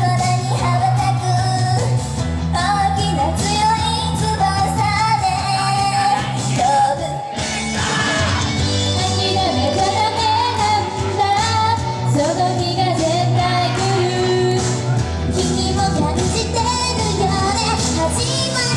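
Live J-pop song from a female idol group: a sung melody over a full pop backing, played loud through the stage sound system.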